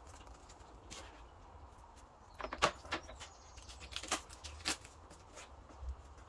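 Blue masking tape being peeled and pressed down to hold a clear plastic hood deflector against a van's bonnet: a faint scatter of short crackles and taps, the loudest about two and a half seconds in.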